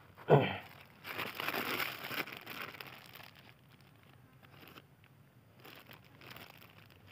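Close handling noise: a sharp bump, then about two seconds of rustling and crinkling, with a few fainter rustles later on.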